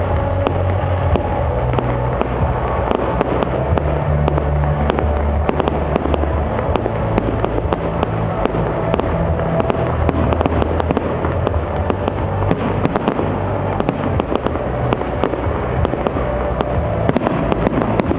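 Fireworks display: a dense, unbroken run of crackling bangs over a steady low rumble from shells going off.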